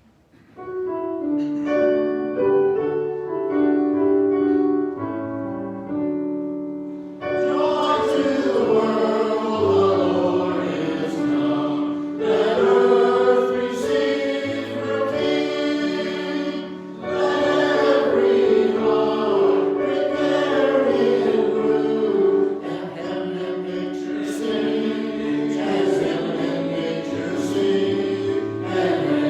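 A choir singing a sacred piece with instrumental accompaniment. A short introduction of held chords runs for the first several seconds, then the full choir comes in about seven seconds in.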